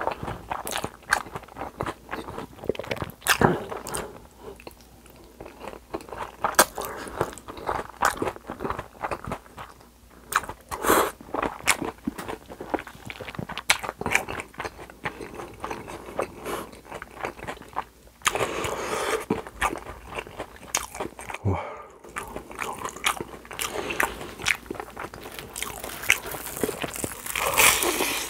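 Close-miked eating sounds: chewing a mouthful of spicy cold noodles, with many irregular wet clicks and smacks. Near the end comes a thicker, noisier crunching as a crispy panko-breaded cheese pork cutlet is bitten into.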